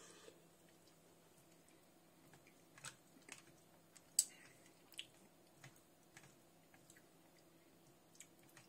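Green plastic fork stirring and scooping chicken casserole in a plastic microwave bowl. It makes faint, scattered clicks and scrapes, the sharpest about four seconds in.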